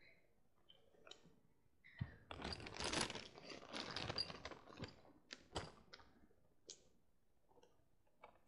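Rustling and crinkling of things being handled close to the microphone for a few seconds, followed by a few separate sharp clicks.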